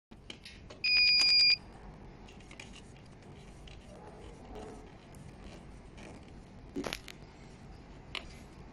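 A single electronic beep from a window-cleaning robot, one steady high tone lasting under a second, about a second in. Then only small clicks and a short knock as the robot is handled.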